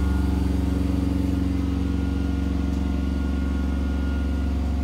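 Steady drone of running machinery on board: a strong low hum with a few constant tones above it, unchanging in level.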